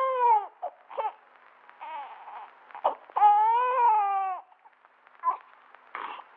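Newborn baby crying. A cry trails off just after the start, short whimpers follow, then a second long, rising-and-falling cry of just over a second about three seconds in, and a few small sounds after it.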